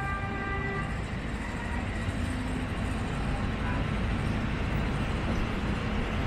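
Street traffic noise: a steady rumble of passing cars and auto-rickshaws, with a pitched tone in the first second.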